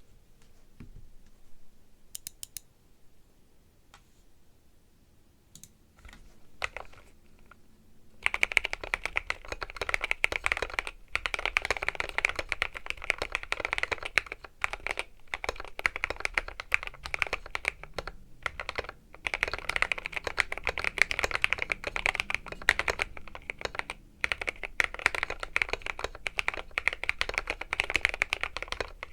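Typing on a Keychron Q1 aluminium mechanical keyboard with Milky Gateron Yellow linear switches and SA keycaps, the switches fitted with Force Break spring mods and the stabilizers with Holee mods. A few scattered keystrokes at first, then about eight seconds in, fast continuous typing with brief pauses.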